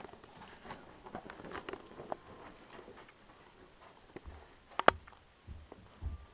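Faint rustling and light clicks of someone moving about in a small room, with one sharp click about five seconds in and a low thump near the end.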